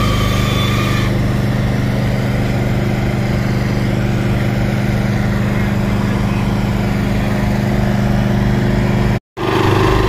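Small asphalt paver's engine running steadily at constant speed, with a brief break near the end.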